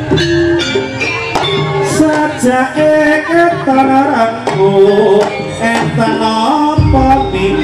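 Live Javanese jaranan ensemble music: hand-drum strokes and struck metal percussion under a wavering, sliding melody line, with a deep low stroke near the end.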